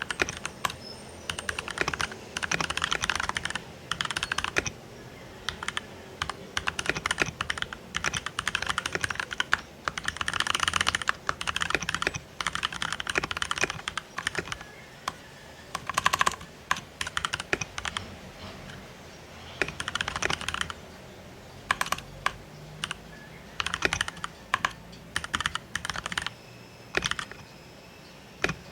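Typing on a Keychron mechanical keyboard: fast runs of key clicks in bursts of a second or two, broken by short pauses.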